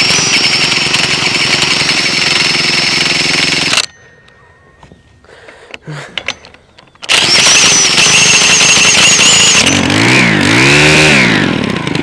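Stihl FS 110R string trimmer engine running fast and steady for about four seconds, then cutting out. After about three seconds of a few clicks it runs again, its pitch swinging up and down near the end: the long-neglected engine, on old fuel, firing and running.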